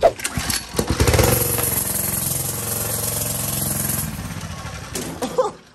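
Off-road go-kart's small gas engine running at a steady speed with its governor removed, after a few sharp clicks, fading away near the end.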